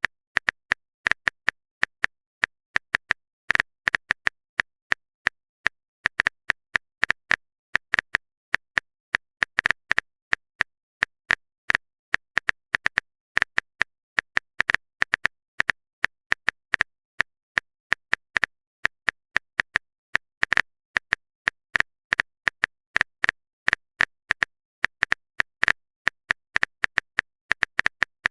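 Typing sound effect: rapid, irregular short clicks like keystrokes, several a second in runs with brief pauses.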